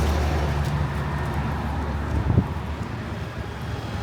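Road traffic: a motor vehicle's low engine hum that fades away after about two and a half seconds, over a steady wash of traffic noise and wind on the microphone. A single short knock comes just before the hum fades.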